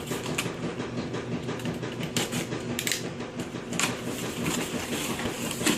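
A package being opened by hand: rustling and crackling of packaging with a string of sharp clicks and snaps, the loudest near the end.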